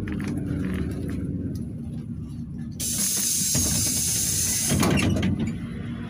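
Cabin sound of a PAZ 32054 bus under way, with a steady low engine rumble. About three seconds in, a loud hiss of released compressed air from the bus's air system starts suddenly, lasts about two seconds and cuts off.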